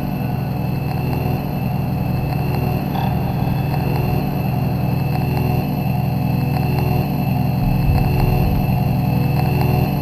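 A vehicle engine idling, heard from inside the cab as a steady low rumble.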